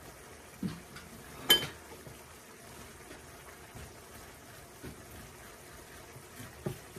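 A metal spoon scraping cooked spaghetti squash into strands on a ceramic plate, with a few soft knocks and one sharp clink of spoon on plate about a second and a half in.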